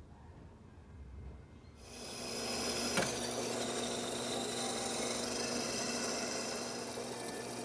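Bench drill press starting up about two seconds in and running steadily while its bit drills a pinhole through the W2 high-carbon steel tanto blade. There is a sharp click about a second after it starts, and a high chattering near the end as the bit cuts.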